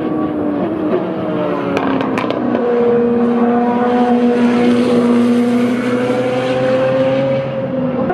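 Super Formula racing car's turbocharged 2.0-litre four-cylinder engine running through a corner. Its note falls over the first couple of seconds, with a few sharp cracks about two seconds in, then holds and rises slowly before dropping away near the end.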